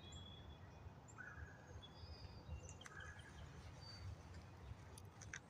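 Near silence outdoors: faint, scattered bird chirps over a low hum of background noise, with a few soft clicks near the end.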